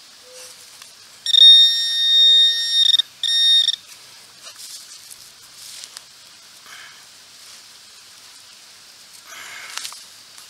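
Metal detector giving a loud, steady, high electronic tone, held for about a second and a half and then again briefly, signalling yet another metal target in the hole of a coin spill. A few faint low beeps come before it, and a short scraping rustle near the end.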